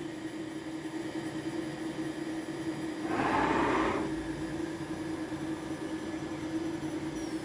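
Home-built CNC router moving its spindle over the workpiece. A steady machine hum runs throughout, and a short burst of hissing comes about three seconds in, lasting about a second.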